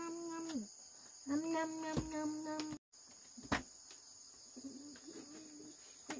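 Crickets chirring steadily at a high pitch. Over them, a drawn-out call at a level pitch sounds twice in the first three seconds and more faintly after the middle, with a couple of sharp knocks and a momentary dropout to silence a little before the three-second mark.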